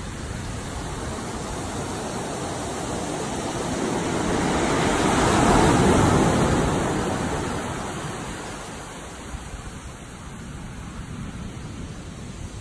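Ocean surf: a wave breaks and washes up the beach, swelling to its loudest about six seconds in and then fading away.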